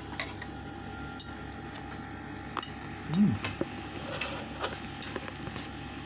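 Spoon and fork clinking and scraping on a ceramic plate while eating rice, in scattered light clicks. A short low voice sound that rises and falls comes about three seconds in and is the loudest moment.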